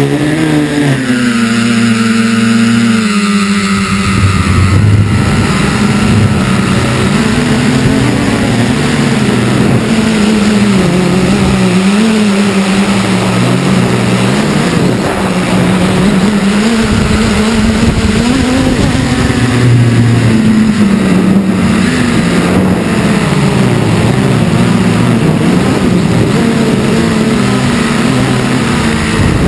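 Multirotor drone's electric motors and propellers whirring, recorded by the onboard camera. The pitch glides down in the first few seconds, then wavers up and down with the throttle.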